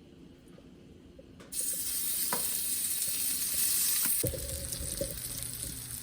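Seasoned shrimp hitting a hot pan, starting suddenly about a second and a half in and sizzling loudly. A couple of seconds later the sizzle eases a little and stirring noises join it.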